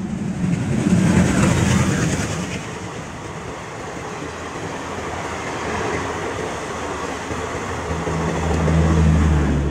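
A train running past at speed: a dense rumble of wheels on rails, loudest about a second in, with a low steady hum coming up near the end.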